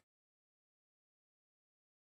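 Silence: the sound track is empty.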